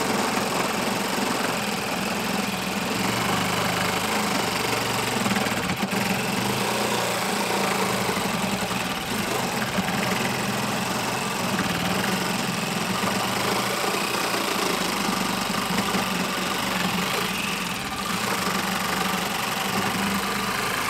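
TackLife 12-volt mini reciprocating saw running steadily as its finer blade saws through a pine 2x4. It is a slow, continuous cut lasting over twenty seconds, which the owner puts down to the 12-volt battery not giving enough power.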